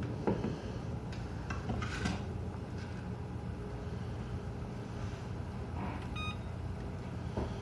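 Stove timer being set: a few soft clicks of the controls, then a short electronic beep about six seconds in, over a steady low hum.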